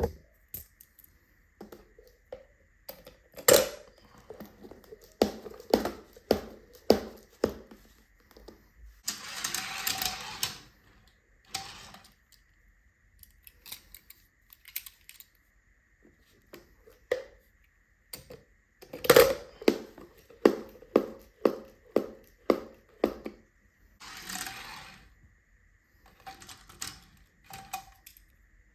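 Small die-cast toy cars clattering and knocking against hard plastic, with runs of quick taps a few a second and a couple of longer scraping rolls.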